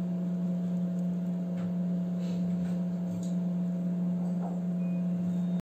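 A steady low hum with a fainter higher tone above it, unchanging throughout and cut off abruptly near the end, with a few faint light clicks.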